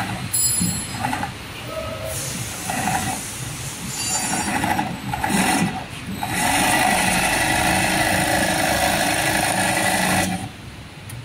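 Industrial sewing machine stitching piping cord onto the edge of a quilted panel. It runs in short start-stop bursts, then steadily for about four seconds before stopping suddenly near the end.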